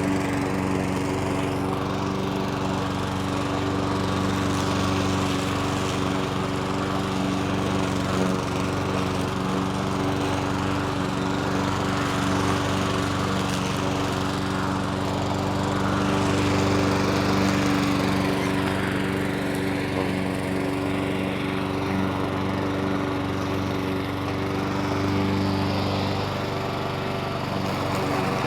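Petrol lawn mower engine running steadily, with a small swell in loudness a little past halfway.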